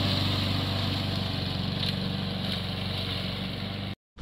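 Gas walk-behind lawn mower engine running steadily as the mower is pushed across grass. The sound cuts off suddenly near the end.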